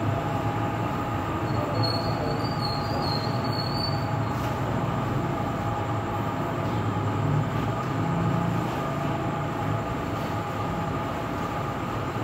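Steady machine hum with several steady tones running under it and a faint high whine from about two to four seconds in.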